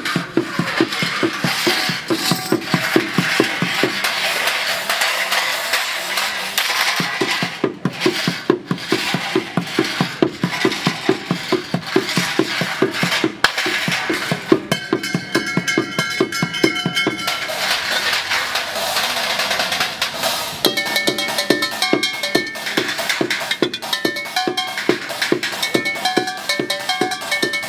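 Fast, steady techno-style drumming with sticks on recycled objects: upturned steel bowls and pans, pots, buckets and sheet metal, full of metallic clanks and ringing tones. The low beat drops out twice for a few seconds, then comes back.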